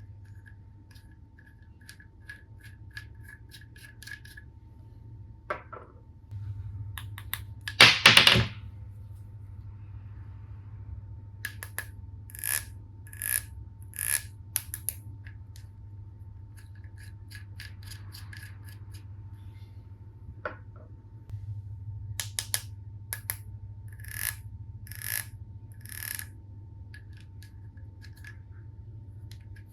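Plastic toy tool-set pieces being handled: scattered sharp clicks and taps, with a louder brief clatter about eight seconds in and tight clusters of clicks around the middle and again near the end.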